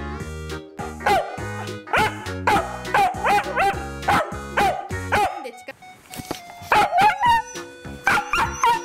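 A dog barking over background music: a quick run of short, high barks about two a second, a pause for about a second and a half, then more barks near the end.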